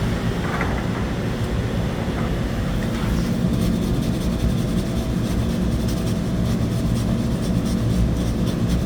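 A motor vehicle's engine running steadily: a low, even rumble with no rise or fall in pitch.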